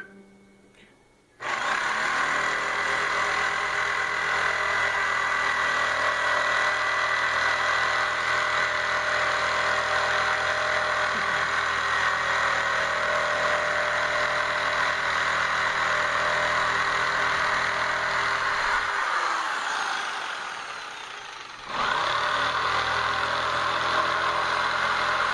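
Electric saw starting up sharply and running steadily while cutting a cedar wheel, then winding down with a falling pitch after about nineteen seconds and starting again a few seconds later.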